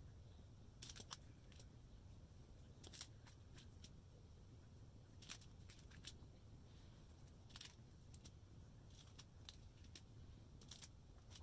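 Faint, scattered clicks and crinkles of small plastic bags of diamond-painting drills being picked up and set down on the canvas, about a dozen short ticks over a quiet room hum.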